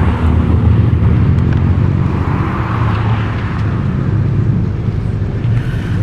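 A steady low engine hum with general street noise.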